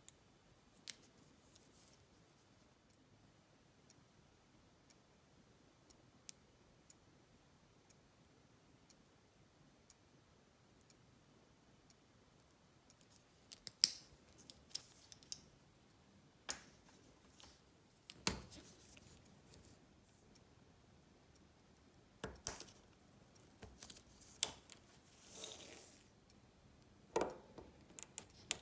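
Small metal hand tools clicking and scraping on watch parts during disassembly: a few scattered light clicks at first, then from about halfway a busier run of sharp clicks and taps with a brief scrape.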